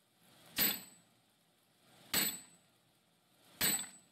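Three heavy hammer blows on a handled set tool held against red-hot steel on the anvil, forging a hammer eye drift. They come about a second and a half apart, each a sharp clang with a brief high metallic ring.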